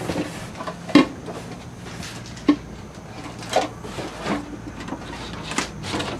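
Cardboard boxes and a framed picture being shifted and set down inside a moving truck's metal cargo box: a scattered series of knocks, thumps and scrapes, about half a dozen, the loudest about a second in.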